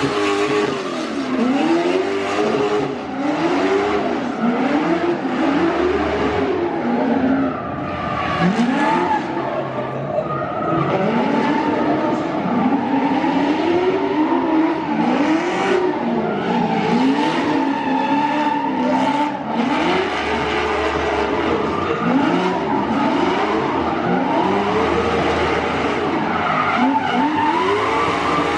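Drift car engine revving up and down over and over, about once a second, with tyres skidding and squealing as the car slides. The revs ease off for a few seconds partway through, then the rising and falling picks up again.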